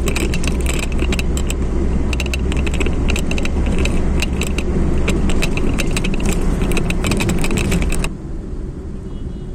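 Car cabin while driving: steady engine and road rumble with many rapid, irregular metallic clicks and jingles over it. About eight seconds in the clicking stops and the sound drops suddenly to a quieter road noise.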